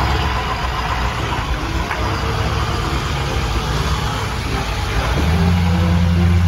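Full-size school bus engine running as the bus drives past, with a hiss of tyres on wet pavement. The low engine hum grows stronger and steadier about five seconds in.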